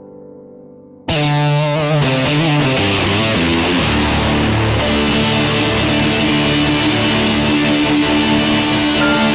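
Korg Pa5X arranger keyboard playing: a piano tone fades out, then about a second in a loud distorted electric-guitar voice comes in with a quick run of notes and then held chords.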